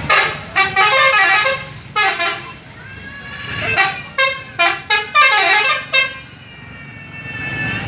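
Bus 'telolet' multi-tone musical horn playing its tune as a series of loud pitched toots: a run of notes in the first second and a half, a short blast at about two seconds, then a quick string of short toots from about four to six seconds in.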